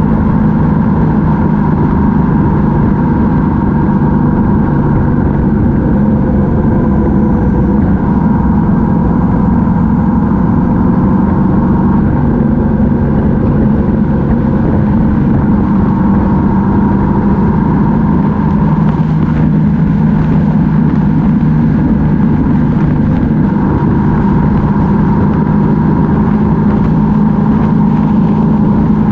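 Yamaha MT-07's 689 cc parallel-twin engine running at a steady cruise, a constant drone whose pitch holds nearly level with only slight shifts in speed.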